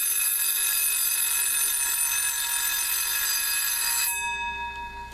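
Equity by La Crosse Minibell windup alarm clock's mechanical bell alarm ringing loudly and steadily. It stops sharply about four seconds in, leaving the bell's tone fading briefly.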